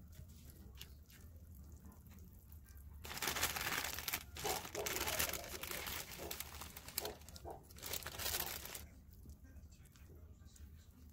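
A plastic pouch of boxed brownie mix crinkling as the dry mix is poured into a bowl, for about six seconds in the middle. Before and after, a spatula stirs the batter softly.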